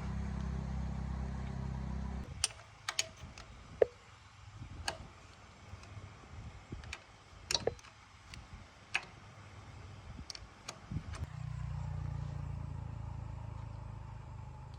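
Motorbike engine running with a steady low hum that stops about two seconds in. A string of sharp metallic clicks and taps follows, and near eleven seconds in the engine is running again, slowly getting quieter.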